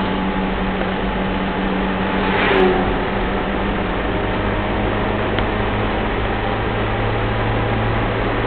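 Mitsubishi Pajero's turbo-diesel engine running steadily under way, heard from inside the cabin over road noise. The engine note shifts lower about four seconds in, and a short louder burst of noise comes about two and a half seconds in.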